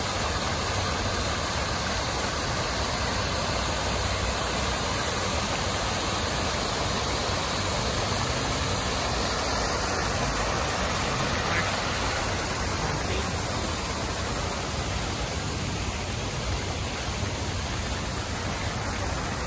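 Park fountain jets and a small rock waterfall splashing into a pond: a steady rushing hiss of falling water.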